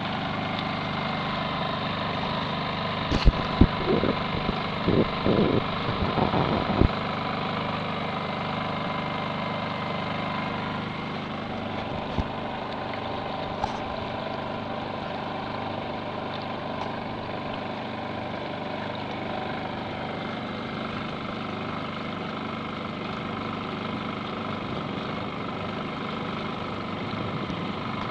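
Honda portable generator idling steadily aboard a solar canoe under way, with a cluster of knocks and bumps about three to seven seconds in.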